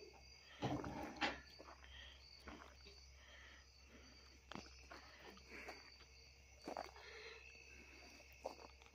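Faint night insects, crickets among them, chirping steadily, with a few soft scattered knocks.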